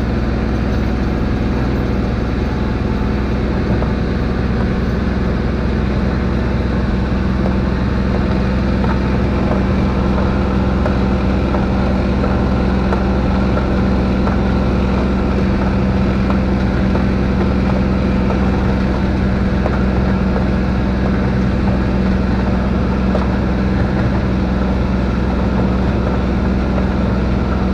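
Kubota diesel engine running at a steady pace while the vehicle plows deep, heavy snow.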